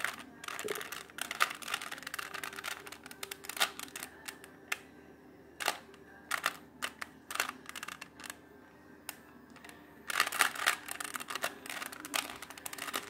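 Plastic 3x3 Rubik's cube being twisted by hand: layers clicking and clacking as they turn, in quick runs of clicks with short pauses between them.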